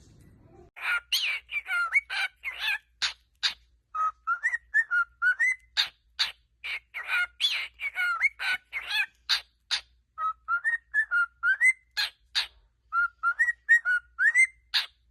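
A bird calling in a fast run of short sharp notes mixed with whistled, rising glides. The phrases recur several times.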